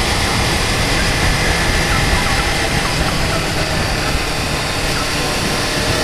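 Motorcycle riding at a steady speed: a constant engine drone under an even rush of wind and road noise, with a faint steady whine running through it.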